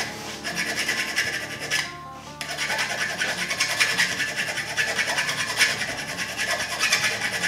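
Steel hand file rasping back and forth across the bottom edge of a forged steel hatchet head held in a vise, chamfering off the sharp forging edge, in quick repeated strokes with a short pause about two seconds in.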